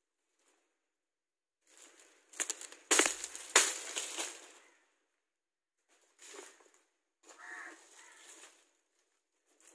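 Dry coconut palm fronds crackling and rustling as they are handled and hacked, with several sharp cracks in a dense stretch a couple of seconds in. Shorter rustling bursts follow later.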